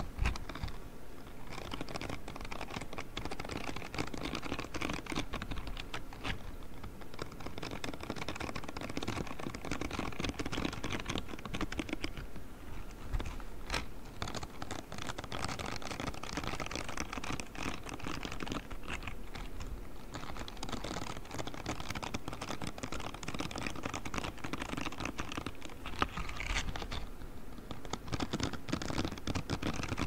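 Grey spiky silicone scrubbing gloves rubbed and scratched over a microphone's metal mesh grille: a dense, continuous crackle of tiny clicks and scratches close to the mic.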